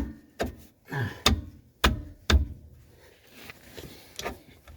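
Sharp clicks and knocks of drum-brake parts and hand tools being handled and fitted: about six in the first two and a half seconds, then a few fainter ones.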